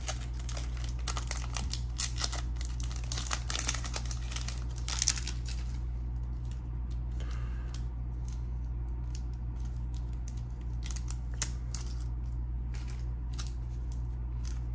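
Foil trading-card pack wrapper crinkling as it is torn open, then sparser light clicks and rustles of the cards being thumbed through by hand, over a steady low hum.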